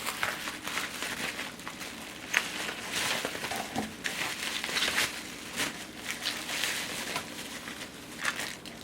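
Packaging being handled while parts are unwrapped: plastic wrapping crinkling and rustling, with irregular crackles throughout.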